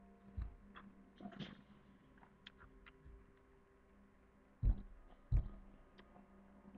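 Steady low hum of a quiet room, with a few faint light clicks and a soft low thump at the start, then two dull low thumps about two-thirds of a second apart around five seconds in, like bumps against the desk or microphone.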